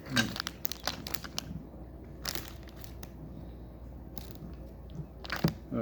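Handling of small plastic Lego pieces: a quick cluster of clicks and rattles over the first second and a half, then scattered single clicks.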